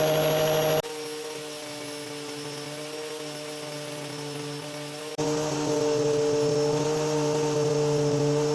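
Black and Decker angle grinder fitted with a sanding disc, running at full speed with a steady whine. The sound drops sharply in level about a second in and comes back up just after five seconds in.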